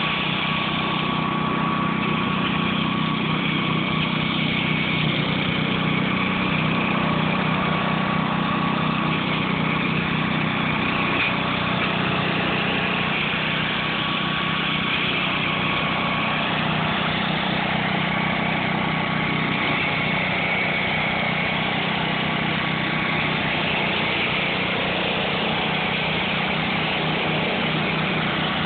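1966 Gravely walk-behind tractor's engine running steadily as its rotary mower deck cuts through brush. The engine is freshly repaired and running strong.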